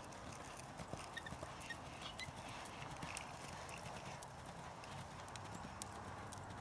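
Hoofbeats of a paint horse mare loping on soft sand arena footing: faint, scattered soft clicks and thuds.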